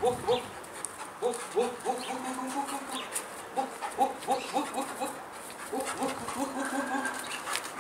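Pointer dog yelping excitedly in short rising yelps, about three a second, in runs with short breaks.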